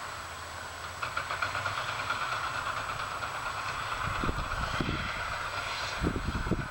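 Heavy construction machinery running with a steady rattling clatter, and irregular low thumps starting about four seconds in.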